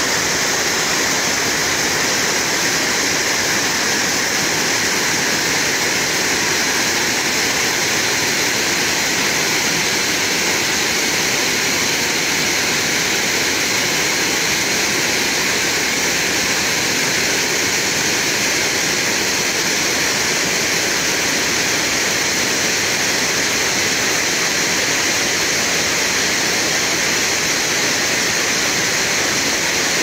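Waterfall and stream water rushing over rocks: a steady, even roar of white water that does not change.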